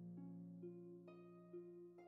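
Quiet, slow harp music: single plucked notes, a new one about every half second, ringing over held low notes.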